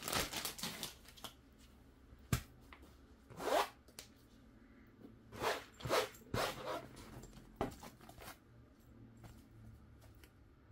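Handling of a trading-card binder and its cardboard-and-plastic packaging: a rustle as the sleeve slides off, then a sharp click and several short rising swishes as the binder is moved and picked up.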